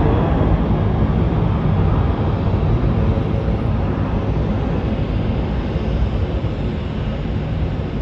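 Twin-engine jet airliner climbing away just after takeoff, its engines a steady low rumble that slowly fades.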